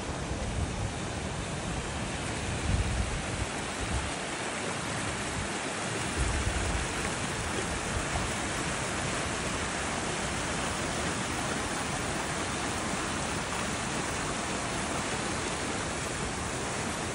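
Waterfall rushing: a steady, even roar of falling water, with a few low rumbles on the microphone in the first several seconds.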